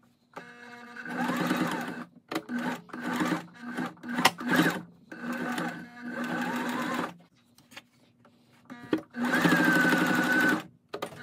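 Electric sewing machine stitching fabric in several runs of one to three seconds, its motor whine rising as it speeds up. Short pauses come between runs, and one longer pause of about two seconds falls past the middle.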